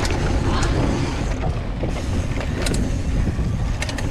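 A hardtail mountain bike riding fast down a rough dirt trail: wind rumble on the helmet-mounted action camera and tyre noise, with a few sharp rattles from the bike over bumps, near the start and toward the end.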